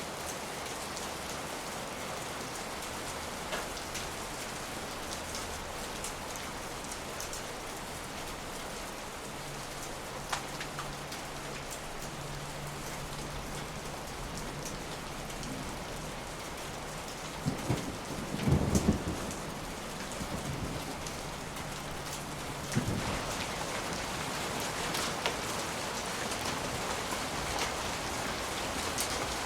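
Steady rain falling, with a roll of distant thunder a little past halfway and a second, shorter rumble soon after.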